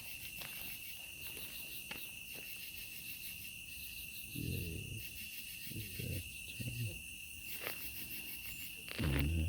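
Insects chirping in a steady high drone with a fast pulsing shimmer above it. A few short low sounds break in, the loudest near the end.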